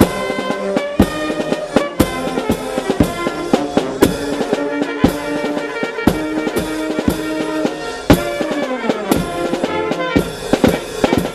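Miners' wind band playing in the street: saxophones, clarinets and brass over a steady snare and bass drum beat of about two strokes a second.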